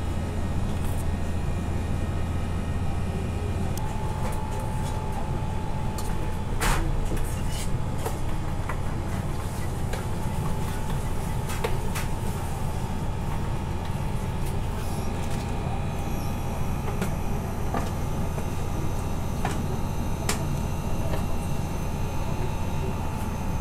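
A steady low machine hum, with scattered short clicks and knocks over it.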